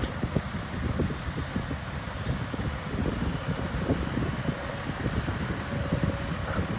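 Heavy construction machinery's diesel engine running, a steady low rumble, with wind buffeting the microphone.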